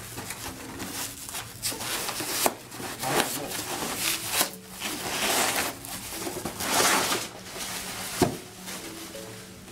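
A plastic-wrapped roller shade being slid out of a long cardboard box: repeated rubbing and rustling of cardboard and plastic, with a sharp knock about two and a half seconds in and another about eight seconds in.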